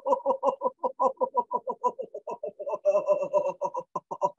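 A woman's forced, rapid 'ha-ha-ha' laughter, about seven beats a second, kept up on one long exhalation as a laughter yoga exercise to empty the lungs of stale air.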